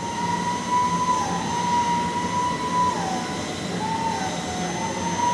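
Overhead stacker crane running: a steady whine over a machinery hum, the whine gliding a little lower in pitch and back up a few times.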